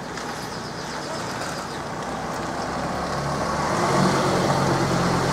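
A motor vehicle's engine running steadily, growing louder from about three seconds in, with people's voices in the background.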